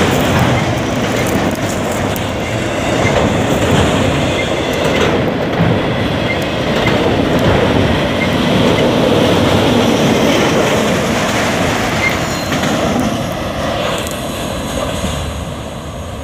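Autorack freight cars rolling past at speed, steel wheels clattering over the rail joints with some wheel squeal. The sound fades near the end as the train draws away.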